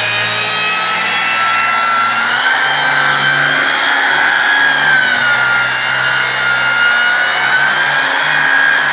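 Electric angle grinder with a sandpaper disc sanding a wooden door: a steady high whine over a dry sanding hiss. The pitch sags a little and recovers a few times as the disc is pressed into the wood and moved along the frame.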